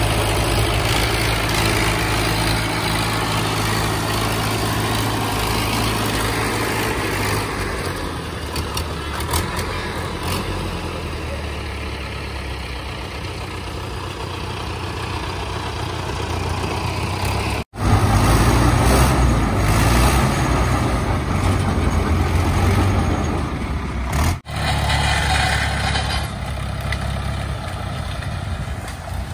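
David Brown 995 farm tractor's diesel engine running steadily, cut off abruptly for a moment twice.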